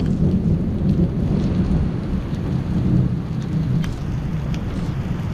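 Heavy rain pouring down, with a strong low rumble underneath and a few sharp ticks of drops hitting close by.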